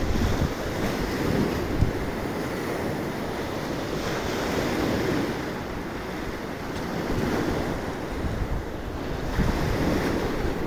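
Sea surf washing onto the shore in rising and falling swells every few seconds, with strong wind buffeting the microphone in a low rumble.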